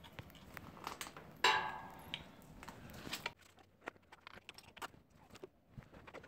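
Metal parts and tools being handled: scattered clicks and knocks, with one short ringing clank about a second and a half in. The background drops away about halfway through, leaving fainter, sparser clicks.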